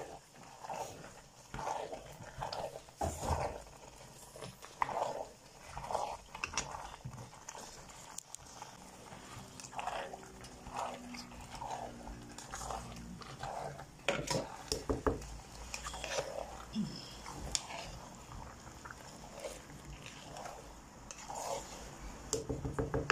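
A spoon stirring thick, leafy vegetable soup in a large pot: short, wet scraping strokes repeated every second or so, with occasional sharp clicks of the spoon against the pot.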